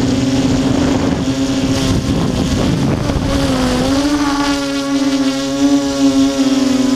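Armattan Tilt FPV quadcopter's brushless motors and propellers whining steadily, heard from on board. Near the middle the whine turns rough and noisy and its pitch dips briefly, then it climbs back to a steady whine.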